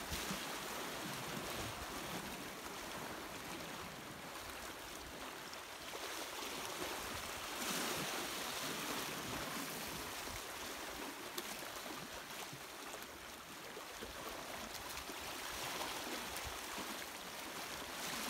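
Small waves washing and lapping around shoreline rocks, a steady hiss of moving water that swells and eases gently.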